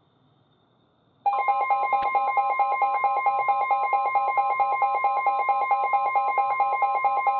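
Weather radios going off in alert mode: a fast electronic beeping of several pitches, about seven beeps a second, starts suddenly about a second in over a steady tone near 1 kHz, the NOAA Weather Radio warning alarm tone that comes before a new warning.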